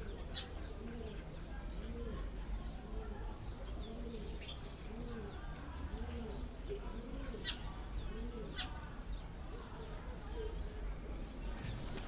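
A dove cooing in a steady string of soft notes, each rising and falling, a little under two a second, with a few sharp chirps from Cape sparrows over it. A low steady rumble runs underneath.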